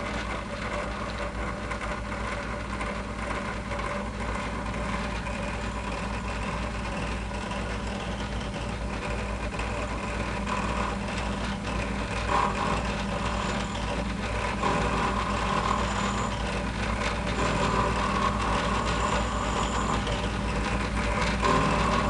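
Drill press running steadily while a stack of nylon spacers spinning in its chuck is turned down against a tool bit. A steady motor hum runs throughout, with a scraping cutting noise that comes and goes from about ten seconds in and grows a little louder.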